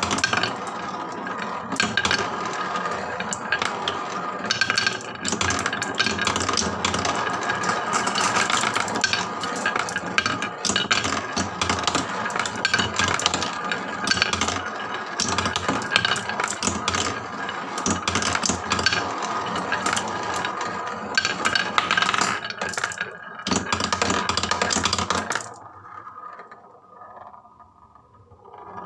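Many marbles rolling and clattering down wooden HABA slope tracks, a dense, continuous rattle of clicks and knocks. It cuts off abruptly near the end, leaving a few faint rattles.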